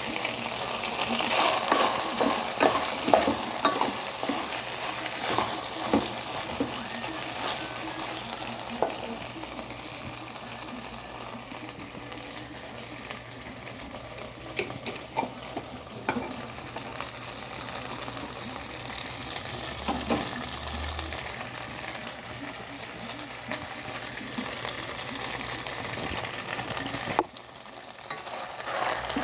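Food sizzling as it fries in a pan, with a steady hiss. A utensil stirring it clicks and knocks against the pan now and then. The sizzle drops away briefly near the end.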